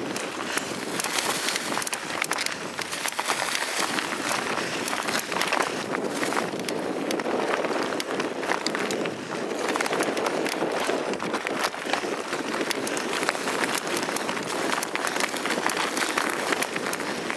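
Mountain bike ridden over a dry dirt forest trail, heard through a camera mounted on the bike: a steady rush of tyre noise with constant small rattles and knocks from the bike and the mount over the bumps.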